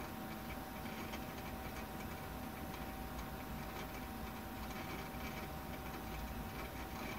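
Computer hard drive ticking with irregular seek clicks while the SGI Indy boots IRIX from a 15,000 RPM SCSI drive, over a steady machine hum.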